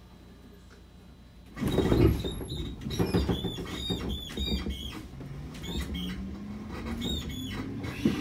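Interior running sound of a JR Series 211-5000 electric train car (MoHa 210-5054, inner-fan C-MT61A traction motors) pulling away from a station. After a quiet first second and a half, the running noise rises suddenly, with repeated high squeaks. From about five seconds in, the traction motor whine climbs steadily in pitch as the train accelerates.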